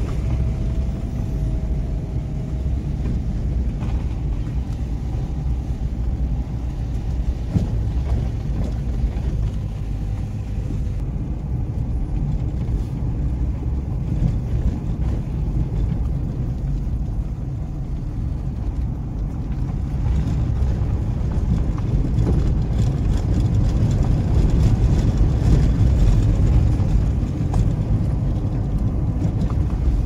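A car driving on an unpaved gravel road, heard from inside the cabin: a steady low rumble of engine and tyres that grows somewhat louder about two-thirds of the way through.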